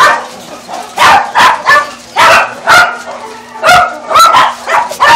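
Dog barking repeatedly: about eight short barks in uneven bunches, with brief gaps between them.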